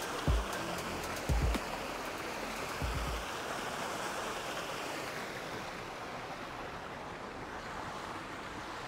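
Fountain water splashing steadily from a high bowl into a stone basin, with a few short low thumps in the first three seconds.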